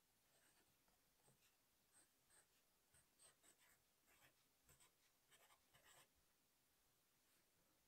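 Pencil writing on sketchbook paper: a faint run of short scratching strokes that stops about six seconds in.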